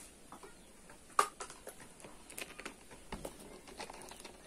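Scattered light clicks and taps from a plastic soda bottle and a thin plastic cup being handled, the sharpest click about a second in.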